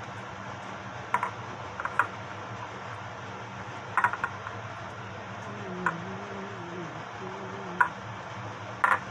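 Light, irregular clicks and taps of fingers and nails against a metal madeleine pan as butter is spread into the shell moulds by hand, about eight in all, some in quick pairs.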